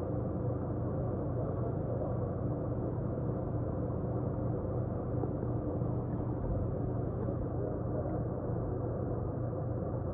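Plumber's soldering torch flame burning steadily with a low, even rushing sound while heating a copper fitting on a vertical pipe.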